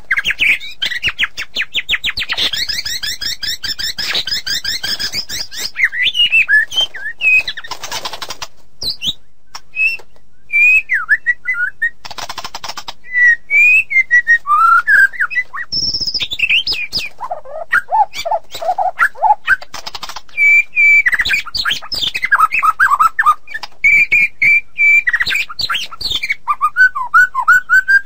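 White-rumped shama (murai batu) singing a long, varied song: clear gliding whistles, fast rattling runs of repeated notes and a few harsh, raspy bursts, in phrases separated by short pauses, with a run of lower warbled notes about two-thirds of the way through.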